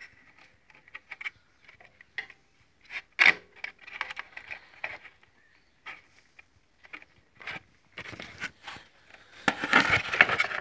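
Irregular clicks and scrapes of small parts being handled and fitted while an electronic weighing scale is put back together, with a louder run of scraping and clicking near the end.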